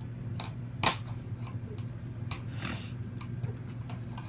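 Small clicks and taps of a fidget spinner being handled as a bearing is pried out of its frame, with one sharper click about a second in and a short scrape in the middle.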